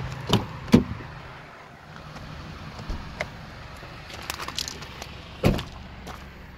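Driver's door of a 2003 Honda CR-V: the handle is pulled and the latch clicks twice near the start, a few light clicks follow, and the door shuts with a thump about five and a half seconds in.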